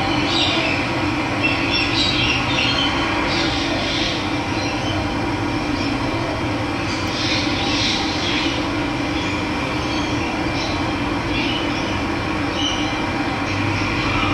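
Steady rush of running water, with birds chirping now and then over it.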